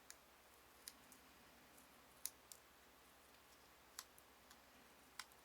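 Faint, irregular light clicks and taps, about six spread unevenly, from handling small paper roof tiles and cardstock pieces.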